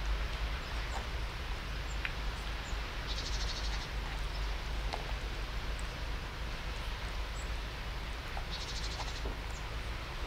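Two cats eating wet food from a plastic tub, a few soft chewing clicks over steady outdoor rumble and hiss. Twice a brief high rapid trill, like a small bird's call.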